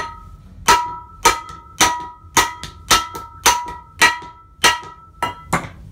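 Hammer striking the U-joint yoke of a Jeep Cherokee XJ axle shaft resting on two brake drums, about eleven blows at roughly two a second, each with a short metallic ring, the last two close together. The blows are driving a U-joint cap out of the yoke.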